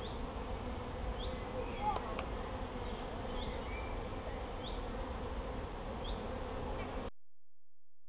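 A large cluster of honeybees buzzing steadily, the hum of thousands of bees together, with a few passing flights. The sound cuts off suddenly about seven seconds in.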